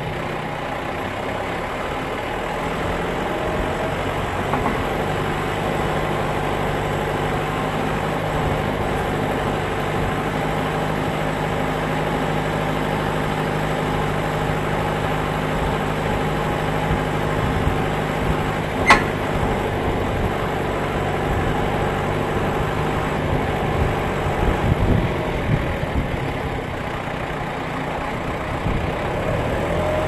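Farm tractor's diesel engine running steadily as it drives, with one sharp click about two-thirds of the way through and a few small knocks near the end.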